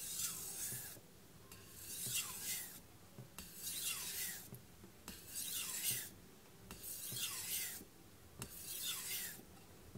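Aogami #2 steel bunka knife drawn across a Naniwa Pro 1000-grit whetstone in full-length sharpening strokes: six gritty scraping strokes, about one every second and a half, each with a tone sliding down in pitch as the edge travels along the stone. These are the refining passes that follow raising a burr on both sides.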